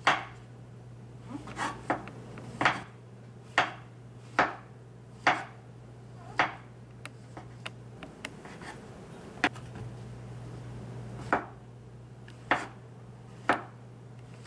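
Kitchen knife slicing raw white mushrooms thin on a cutting board: sharp knocks of the blade on the board, roughly one a second, about a dozen in all, with a pause in the middle.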